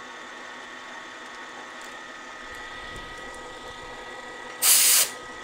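Bridgeport milling machine's spindle running steadily with a number 9 drill bit, used to drill out a broken 6 mm screw in a steel exhaust pipe, the bit backed out of the hole. About four and a half seconds in, a loud hiss cuts in for about half a second.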